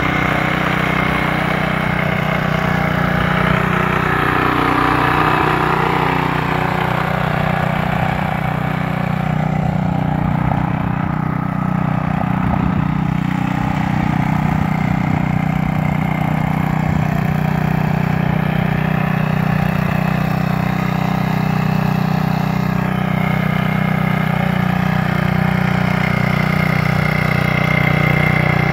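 Small gas engine of an old 1970s Plow Hoss walk-behind tiller running steadily at working speed as it pulls a plow through the soil to form a row.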